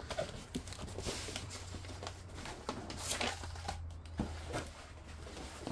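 Faint rustling and crinkling of a plasticky diamond-painting canvas being handled and rolled, with light taps, one sharper tick a little after four seconds in.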